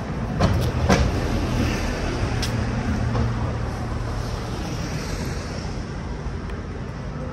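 City street traffic, with a heavy vehicle's engine droning steadily as it passes. Two sharp knocks sound about half a second and a second in.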